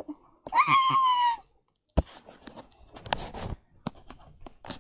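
A single rooster crow, about a second long, starting about half a second in. It is followed by one sharp knock and scattered light clicks and rustling from toys being handled.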